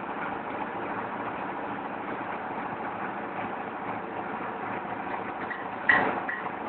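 Brick-making clay extrusion machine running with a steady mechanical drone, and one sharp metallic clank about six seconds in.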